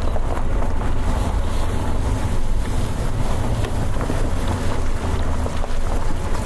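Wind buffeting the microphone: a steady low rumble with a few faint clicks in it.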